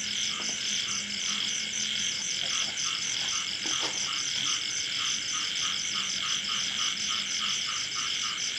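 Night chorus of insects and frogs: a steady high-pitched shrilling that pulses rapidly, joined about two seconds in by a frog croaking in a quick regular series, about three croaks a second.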